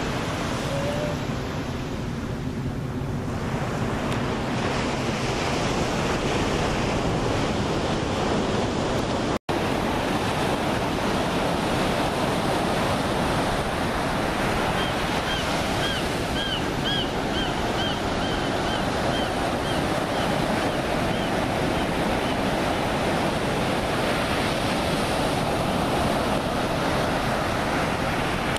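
Ocean surf breaking and washing steadily, with wind buffeting the microphone. The sound cuts out for an instant about a third of the way in, and a short run of quick high chirps sounds a little past halfway.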